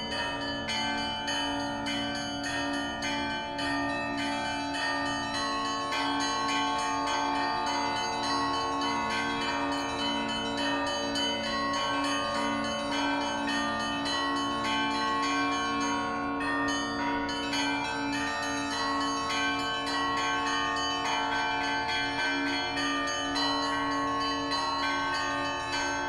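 Russian Orthodox church bells ringing: several bells of different pitches struck over and over in a steady, continuous rhythm, their tones ringing on and overlapping.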